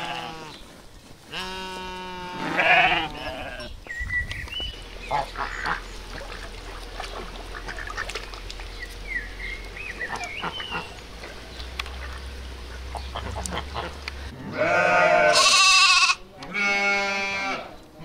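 Sheep bleating, two long calls in the first few seconds. Then domestic ducks calling on water over a low steady rumble. Near the end, lambs bleat loudly twice.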